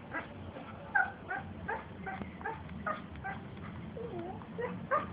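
A husky-type dog giving a steady run of short yips and whines, about two or three a second, with one lower drawn-out whine about four seconds in.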